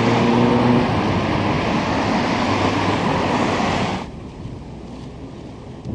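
Road traffic noise: a steady rushing hiss of passing vehicles, with a brief engine hum at the start. About four seconds in it drops abruptly to a quieter, duller background.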